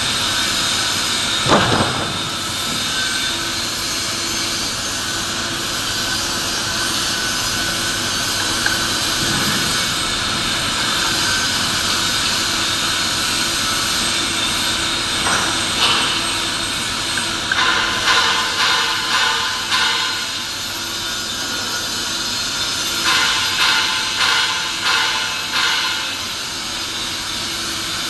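Steady, loud machinery roar of a steel fabrication shop. A sharp knock comes early, and two runs of rhythmic scraping strokes on the steel pipe, about two a second, come later, each lasting about three seconds.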